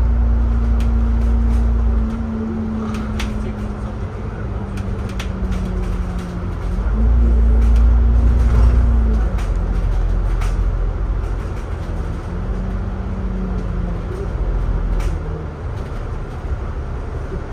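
Double-decker bus engine running under way, heard from inside the bus: a heavy low rumble whose engine note sags, climbs back up about a third of the way in, and rises and falls once more as the bus pulls and eases off. Light clicks and rattles come through the whole time.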